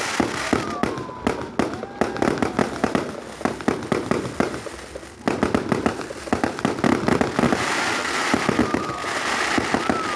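Fireworks going off in rapid succession: a dense run of sharp bangs and crackles, easing briefly about five seconds in, then picking up again.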